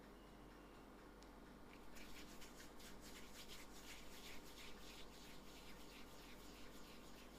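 Faint, quick back-and-forth swishing of bare palms rubbing together as they roll a small ball of soft tart dough smooth. The strokes start about two seconds in and keep an even rhythm.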